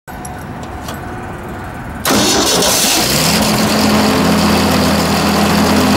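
Wood chipper's Ford 300 inline-six engine starting: it catches about two seconds in with a sudden jump in loudness, its pitch rising briefly before it settles into a steady run.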